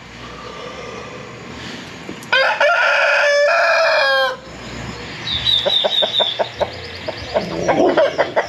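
A rooster crows once, one loud call of about two seconds starting a little over two seconds in. Hens cluck in short bursts after it.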